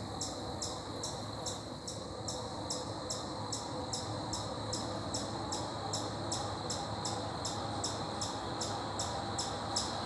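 Insects chirping in an even rhythm, about two to three short high chirps a second, over a steady high-pitched trill.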